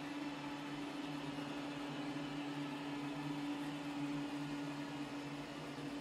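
iRobot Roomba Combo 10 Max robot vacuum running on medium suction while vacuuming carpet: a steady motor hum with a held whine and an airy suction hiss.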